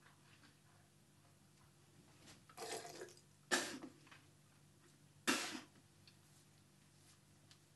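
Hands splashing water onto a face over a basin: three short splashes over a faint steady hum.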